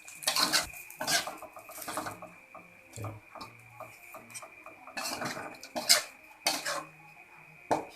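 A spatula scraping and clinking against a frying pan full of stir-fried snails, in about seven separate short strokes with pauses between them.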